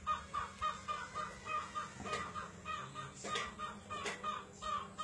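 An animal calling in a steady rhythm of short, pitched notes, about three a second, with a few sharp clicks in between.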